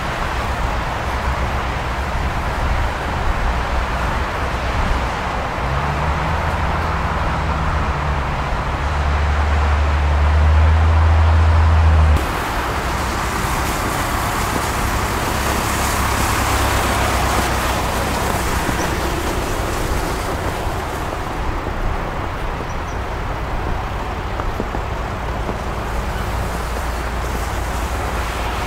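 Volkswagen Caravelle T6's 2.0 TDI four-cylinder turbodiesel running as the van drives slowly at low speed. The engine is louder for several seconds near the middle, then the sound drops suddenly.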